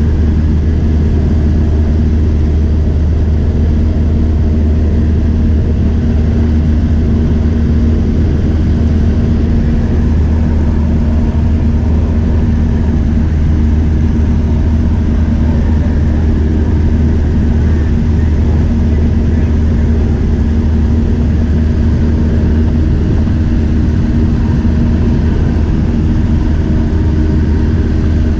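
Light airplane's engine and propeller running steadily in flight, heard from inside the cabin as a constant, unchanging low drone.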